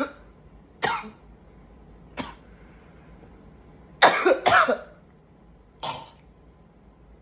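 A man coughing in separate short coughs: one about a second in, a small one near two seconds, two loud coughs in quick succession about four seconds in, and a last one near six seconds.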